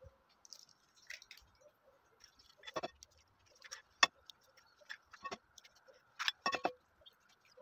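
Eggshells tapped and cracked against the rim of a bowl, one egg after another: a series of sharp taps roughly a second apart, with small crackles as the shells are pulled open.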